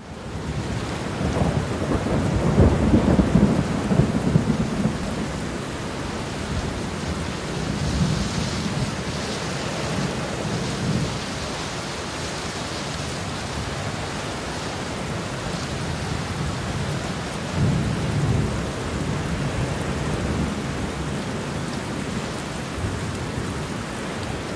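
Heavy rain falling steadily, with rolls of thunder rumbling underneath. The loudest rumble comes a couple of seconds in, and a shorter one comes later.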